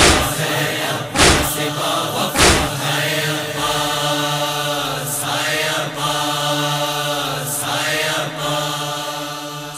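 A group of voices chanting a sustained, drawn-out drone, with three heavy thumps about a second and a quarter apart in the first few seconds, fading out near the end.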